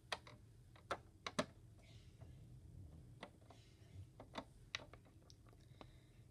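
Faint, scattered light clicks and taps of a small plastic Littlest Pet Shop figure being lifted, hopped and set down on a tabletop, a few louder taps about a second in.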